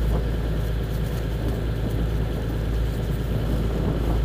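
Rigid inflatable boat's engine running steadily under way, a constant low drone mixed with the rush of wind and water.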